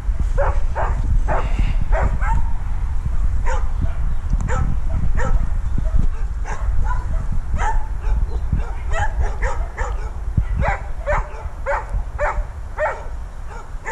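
A dog yelping and barking in short, high calls, about two a second, over a steady low rumble. This is distress vocalising from a dog in a state of separation anxiety, left in a kennel enclosure and trying to get out.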